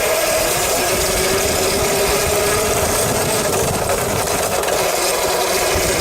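Mototec electric dirt bike's motor and chain drive running steadily, its chain tightened so it no longer rubs on the metal bar. What is heard is mostly a steady motor whine, with little of the chain clicking left.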